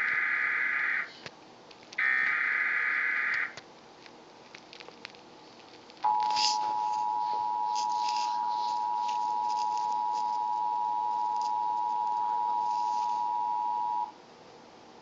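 Emergency Alert System tones from a television: the tail of one rasping digital header burst and then a second full burst, then after a short pause the steady two-tone attention signal, held about eight seconds before it cuts off. The tones announce an emergency alert message.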